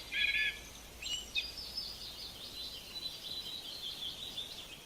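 Countryside nature-ambience sound effect of birds calling and chirping with insects trilling. A few loud, clear bird calls open it, then a steady, dense high chirping runs on.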